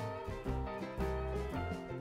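Background music: an instrumental tune with bass notes changing about every half second under stacked melody notes.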